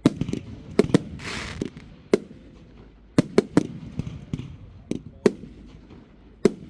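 Fireworks going off: a string of about ten sharp bangs at uneven intervals, with a short hiss about a second and a half in.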